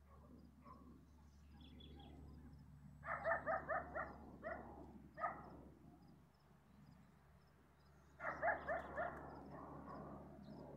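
A dog barking in quick runs of yaps, one about three seconds in and another about eight seconds in, with a couple of single barks between them.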